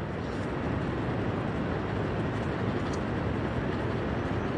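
Steady rushing, rumbling noise with no breaks or clear strokes.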